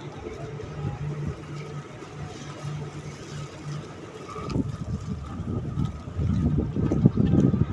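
A boat engine humming low and steady. About four and a half seconds in, a louder, uneven low rumble builds and is loudest near the end.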